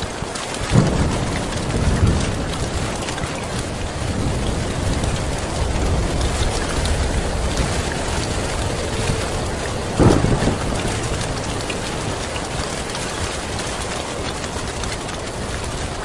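Heavy rain pouring steadily on a tin roof under a continuous low rumble of thunder, with two louder thunderclaps, one about a second in and one about ten seconds in.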